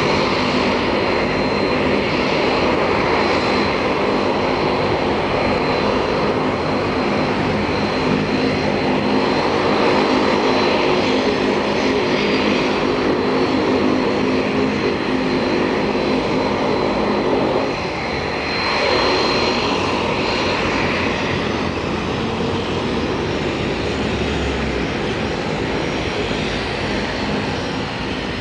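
Floatplane's propeller engine running loud and steady as the plane skims across the water, with a thin high whine over it. The sound drops back a little about two-thirds of the way through.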